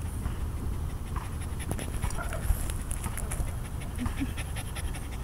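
A young puppy panting in quick, rhythmic breaths, with a steady low rumble on the microphone underneath.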